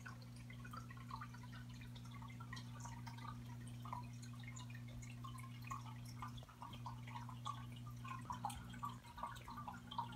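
Hang-on-back aquarium filter running: water trickling and splashing back into the tank in small irregular drips over a faint, steady motor hum.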